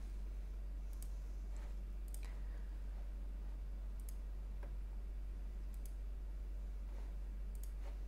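A few separate clicks from a computer mouse and keyboard, spaced a second or so apart, over a steady low hum.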